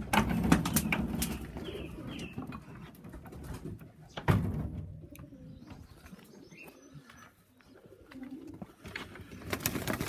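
Domestic pigeons cooing in a loft, with scattered clicks and knocks and one louder thump about four seconds in.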